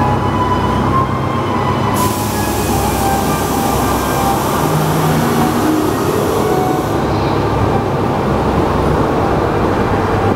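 Amusement park ride train rumbling steadily along its track, with a loud hiss from about two seconds in that stops about seven seconds in.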